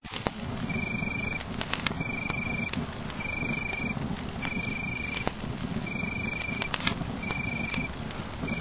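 Campfire crackling and popping, with a short high chirp repeating about once a second over it.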